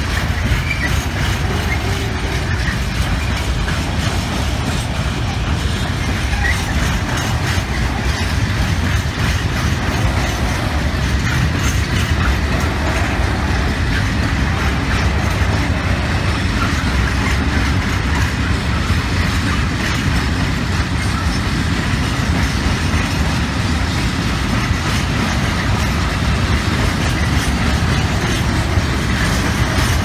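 Empty open-top freight wagons (Eas/Eaos/Eanos types) rolling past, their steel wheels running steadily over the rails.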